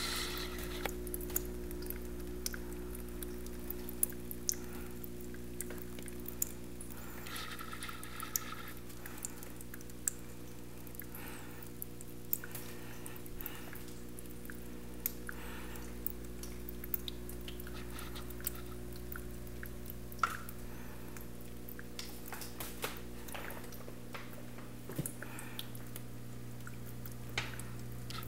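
A steady low hum made of several even tones, with faint irregular clicks and drips scattered over it.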